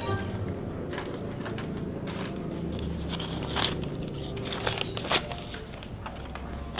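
Newspaper sheets rustling and thin clear plastic egg containers crinkling as the paper is laid into them, with a few short, sharp crackles in the second half.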